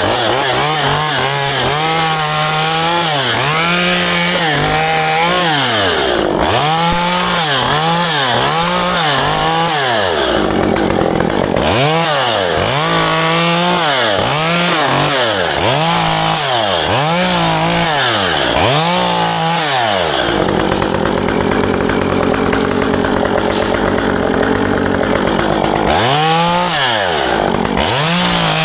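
Chainsaw engine revving up and down over and over, about once a second, while cutting ficus branches. About two-thirds of the way through it runs steadier for several seconds, then starts revving again.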